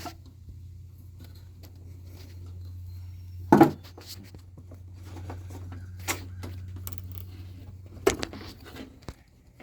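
Pliers and metal parts clicking and knocking while the drive cable's fitting is squeezed and worked free of the mower deck. There are a few sharp knocks, the loudest about three and a half seconds in and others near six and eight seconds, over a low steady hum.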